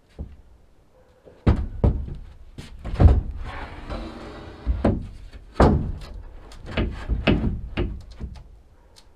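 A series of hollow thumps and knocks with a short scraping stretch in the middle: a shower floor pan being set and shifted into place on the floor of the small plywood-sheathed shower building.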